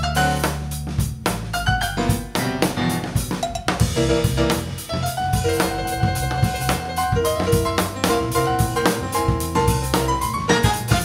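Live jazz-funk band playing: a steady drum-kit groove with snare and bass drum, electric bass and electric keyboard, with held melody notes coming in from about four seconds in.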